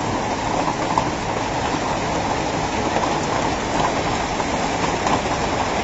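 Hailstones falling thickly with heavy rain, a steady dense clatter of many small impacts on the ground.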